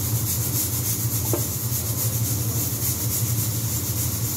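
Steady low hum and hiss of a household machine running, with one light clink a little over a second in.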